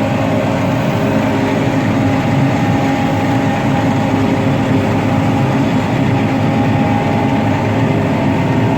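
Combine harvester running steadily under load while cutting soybeans, a constant engine and machinery drone with several steady tones in it.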